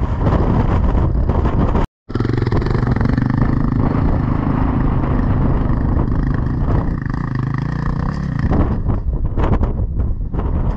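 Beta Xtrainer 300 two-stroke enduro motorcycle engine running steadily under load. The sound cuts out for a moment about two seconds in, and near the end it turns choppy with irregular knocks.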